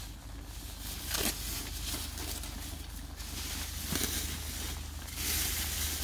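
Clear plastic sheeting rustling and crinkling as it is handled and spread out, with a couple of short knocks.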